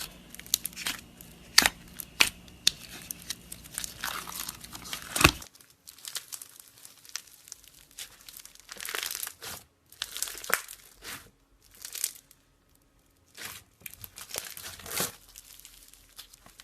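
Slime being squeezed, stretched and poked by hand, giving sharp clicking pops and crackly, tearing bursts at an uneven pace.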